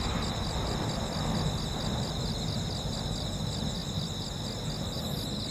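Night insects chirring steadily in a high, pulsing chorus over a low background rumble.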